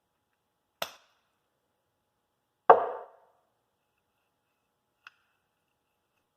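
Metal tractor-rim hardware being handled and set down: a sharp click about a second in, a louder clunk with a short ring in the middle, and a faint click near the end.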